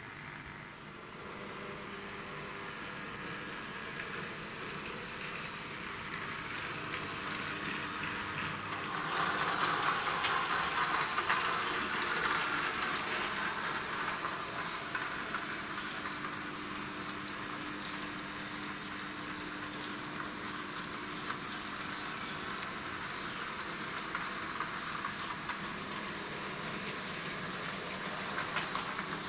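H0-scale model trams running along the layout track: a steady whirring hiss of small motors and wheels on rail, with fine clicking, louder from about nine seconds in.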